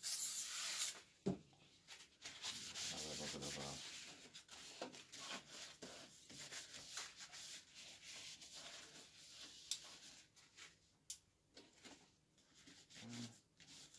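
Paper towel rubbing over a coffee roaster's stainless-steel panel in quick, uneven wiping strokes. A short hiss and a single knock come in the first second or so.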